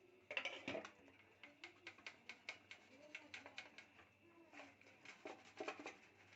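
Faint, irregular small clicks and taps, a few a second, with a louder cluster near the start and another about five seconds in: kitchenware being handled.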